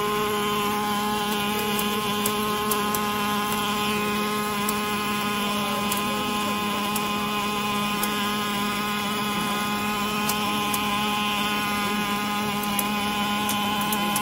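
Automatic wire-fed arc welding on a pulley's inner circular seam: a steady electrical hum and buzz from the welding arc and machine, with a scatter of irregular sharp crackles.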